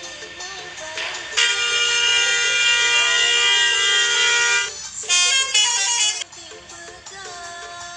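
Bus telolet horn, a multi-tone air horn, sounds a loud held chord for about three seconds, then after a short break plays a quick run of changing notes.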